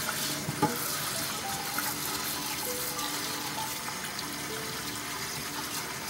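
Kitchen tap running, its water splashing into and over a cast iron Dutch oven being rinsed in a stainless steel sink. A single sharp knock comes about half a second in. Background music plays over it.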